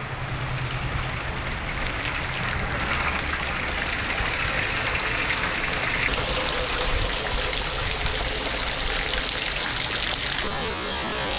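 Typhoon rain pouring down steadily, with water streaming and trickling.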